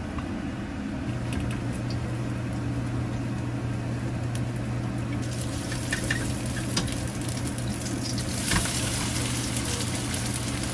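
Korean pancake (buchimgae) batter sizzling as it fries in a nonstick frying pan, the sizzle growing brighter in the second half. A spatula gives a few scrapes and taps against the pan as the pancake is pressed and turned, over a steady low hum.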